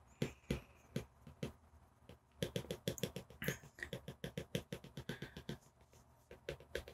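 Stylus tip tapping on an iPad Pro's glass screen: a run of light, irregular clicks, a few at first, then coming quickly several times a second from about two and a half seconds in until near the end.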